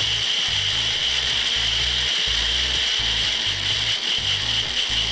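Electric mixer grinder running steadily at full speed with a high whine, its small jar held down by hand as it grinds chutney ingredients with a little water into a smooth paste.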